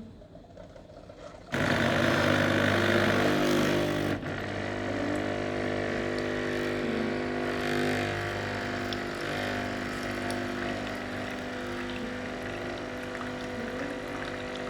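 Coffee pod machine's pump switching on about a second and a half in and running with a steady hum while brewing coffee into the cup; loudest for the first couple of seconds, then settling a little lower.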